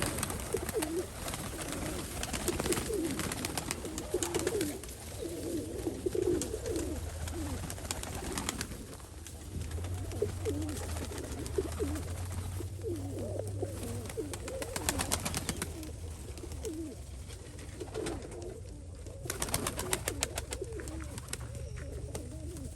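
A flock of Nikolaev pigeons cooing continuously, with many overlapping short coos and scattered sharp clicks among them. A low steady hum runs through the middle stretch.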